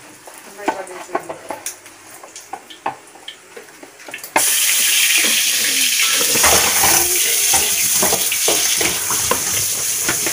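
Plastic bowls and plates clattering in a stainless steel sink, then about four seconds in a tap is turned on and water runs steadily into the sink while dishes knock and are scrubbed.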